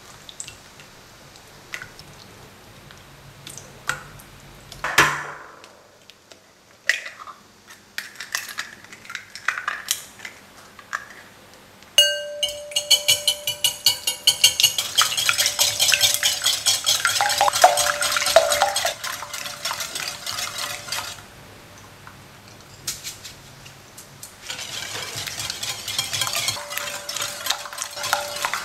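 A wire balloon whisk beating eggs in a glass bowl: a fast, steady run of clinks as the wires strike the glass, starting about twelve seconds in, stopping for a few seconds, then starting again. Before it come scattered light knocks and handling sounds.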